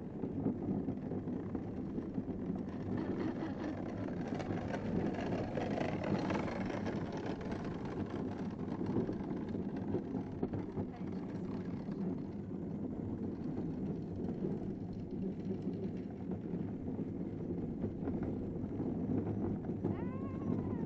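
Gravity-powered downhill kart rolling fast down a concrete track, with a steady rumble of its hard wheels on the concrete, a little brighter for a few seconds about a third of the way in. A short high note rises and falls near the end.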